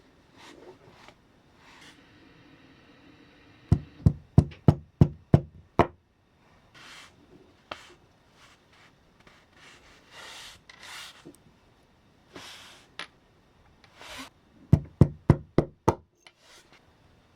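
Two quick runs of about seven sharp knocks each, several a second, with soft rubbing or scraping sounds in between.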